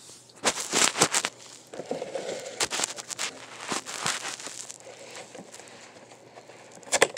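Clear plastic blister packaging crackling and crinkling as it is pulled off the cardboard backing of a toy truck pack. There are clusters of sharp crackles about half a second in and again around three to four seconds in, a quieter stretch after that, and more crackles near the end.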